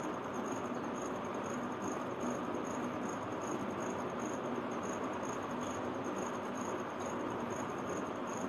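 Faint insect chirping: a short high-pitched pulse repeating evenly about two to three times a second over a steady room hiss.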